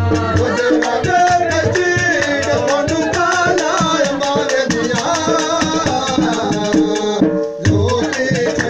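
Live Punjabi folk singing of mahiye, a voice over a fast, busy percussion beat with rattling. The music drops out briefly about seven and a half seconds in.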